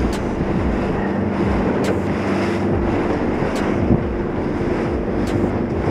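A small 4.5 m boat running at speed: its engine makes a steady drone under heavy wind buffeting the microphone and the rush of spray along the hull.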